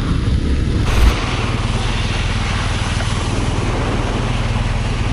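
Motorcycle engine running steadily with an even pulsing beat, after a short loud thump about a second in.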